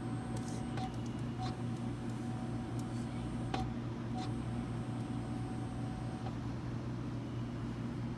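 Drink vending machine humming steadily, with a thin whine that breaks off a few times and stops about six seconds in, and a few light clicks.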